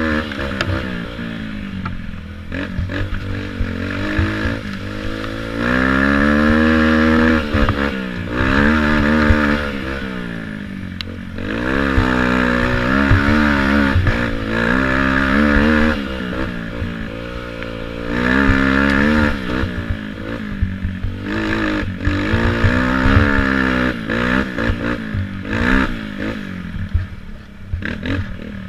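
Youth quad's engine revving up and dropping back over and over as the throttle is worked, with louder full-throttle pulls in between. Clattering knocks come from the quad bouncing over rough ground.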